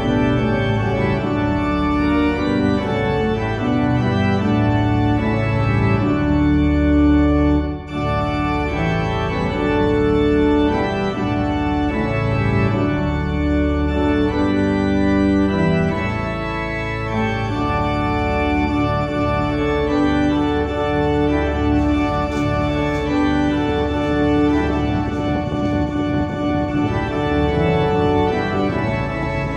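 Organ music, slow held chords that change every second or two.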